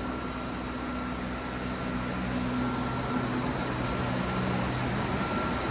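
Steady mechanical hum and noise of a parking garage, with a low drone and a faint thin high tone running through it, growing slightly louder.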